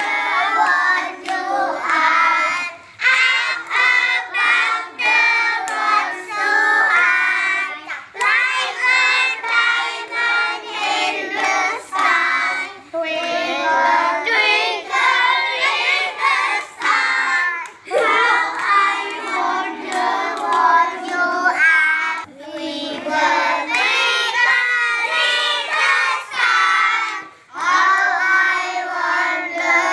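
A group of children singing together without accompaniment, with short breaks between lines.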